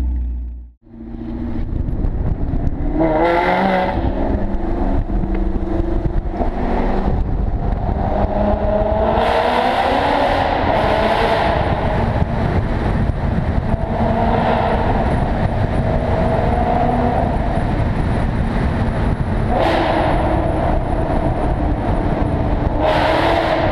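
Maserati GranTurismo MC Stradale's 4.7-litre V8 through an aftermarket Fi valved exhaust with catless pipes and an X-pipe, accelerating hard in a road tunnel: the revs climb and drop several times, with short sharp cracks at several points, echoing off the tunnel walls.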